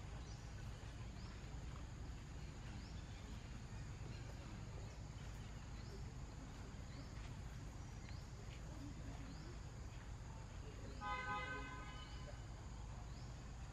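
Steady low outdoor background noise, with faint high ticks repeating about once a second and one short pitched tone, about a second long, near the end.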